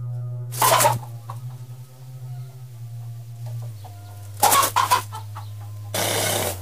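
Electroacoustic tape music: a steady low drone with a few sharp noisy bursts breaking in, one about half a second in, a pair around four and a half seconds, and a longer hissing burst near the end.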